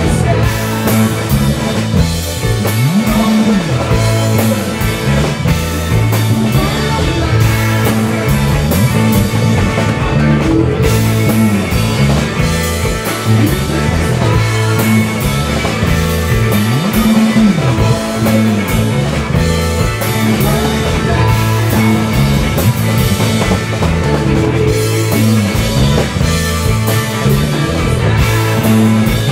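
Live psychedelic rock band playing loud and steady, with electric guitars, bass guitar and drum kit.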